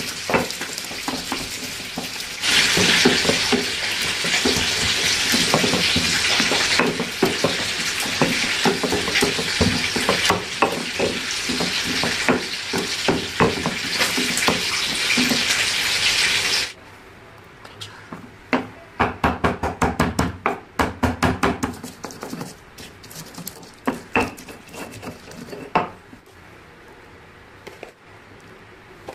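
Stone pestle grinding and crushing chillies and tomatoes in a stone mortar: rough, dense scraping and crushing strokes under a steady hiss for the first two-thirds. After a sudden drop, quieter, irregular knocks and taps of stone on stone follow.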